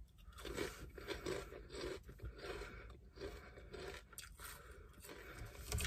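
A person chewing a mouthful of Ruffles ridged potato chip, with quick irregular crunches, about two a second.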